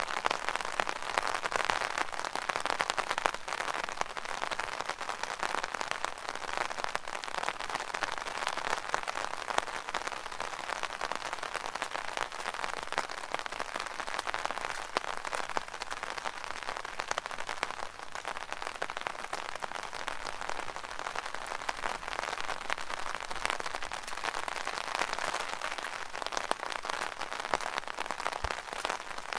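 Rain falling on an umbrella canopy: a dense, steady patter of many small drop hits, cutting in abruptly from silence.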